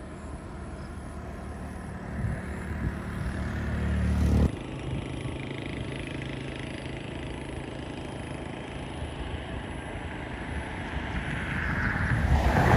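Jet airliner (AirAsia Airbus A320) on the runway: a steady engine rush carried across open ground that swells louder near the end. A heavy low rumble in the first few seconds cuts off abruptly about four and a half seconds in.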